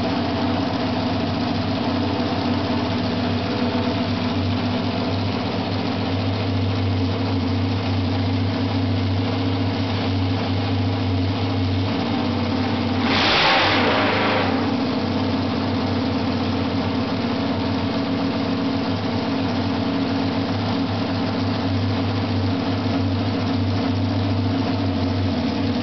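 Homemade Suzuki 500cc straight-eight motorcycle engine, on Amal carburettors and new exhausts, running at a steady idle with one brief rev of the throttle about halfway through.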